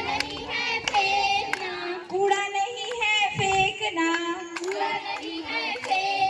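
High female voices singing a song into a microphone, with long held notes and hand-clapping along.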